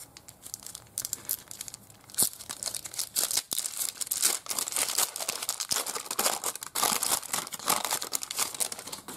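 Shiny trading-card pack wrapper being crinkled and torn open, as a run of irregular crackles that thickens from about two seconds in.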